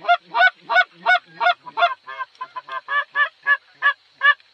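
A rapid, regular series of goose honks, about three a second and some fourteen in all, briefly shorter and quicker around two seconds in, stopping just before the end.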